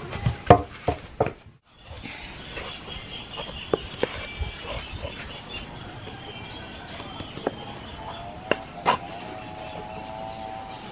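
Wooden pestle pounding saba bananas in a stone mortar, a few quick heavy thumps that cut off about a second and a half in. Then a quieter background with a few light clicks, and a hen clucking near the end.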